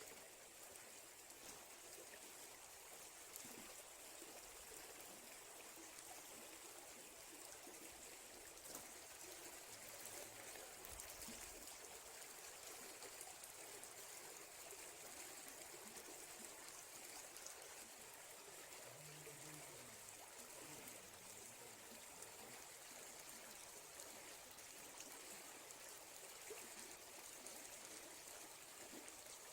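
Faint, steady rush of a flowing stream.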